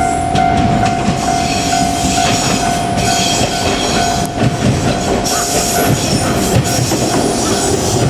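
JR Kyushu 817 series electric train running past at a level crossing, with loud steady wheel-on-rail noise and occasional knocks from the wheels. The crossing's warning alarm sounds a steady ringing tone through it and fades out near the end.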